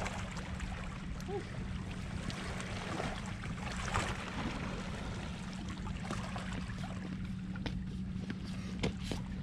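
Wind rumbling on the microphone, with small waves lapping against rocks along the shore.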